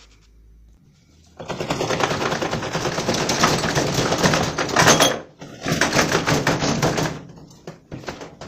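Rapid metal-on-metal hammering: an iron bar struck over and over on top of the drum shaft's nut and bolt of a top-loading washing machine, to drive the wedge down and free a stuck drum. Two runs of fast blows, the second shorter, then a few single knocks near the end.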